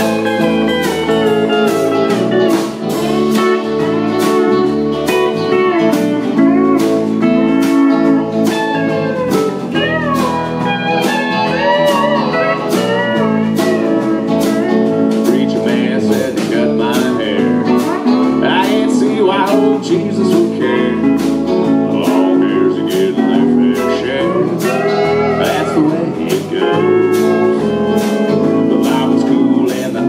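Live band playing: a pedal steel guitar gliding between notes over electric guitar, electric bass and a steady drum beat.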